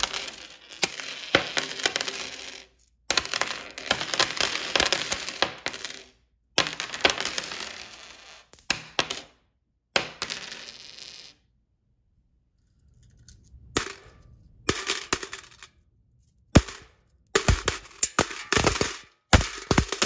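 US coins (quarters, nickels, dimes and pennies) dropped by the handful onto a wooden tabletop strewn with coins, clinking and rattling in bursts of a few seconds with short pauses between. There is a near-silent gap of about a second and a half a little past halfway.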